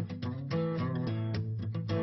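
Background music led by strummed guitar, with a bass line underneath.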